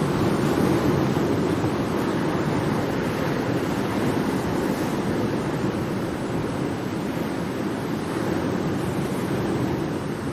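Ocean waves: a steady rushing wash of surf that swells and eases slowly.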